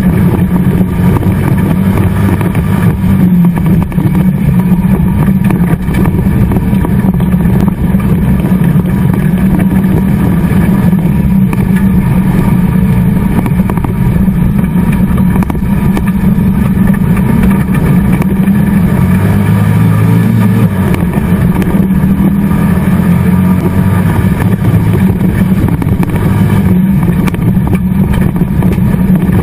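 Dirt-track autocross car's engine running hard at high revs, loud and continuous, heard from inside the caged cabin. About twenty seconds in the revs drop for a second or two, then climb again.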